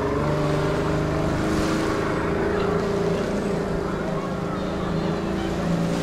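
Motorboat engine running with a steady low drone that shifts slightly in pitch now and then, over small waves washing on a pebble shore.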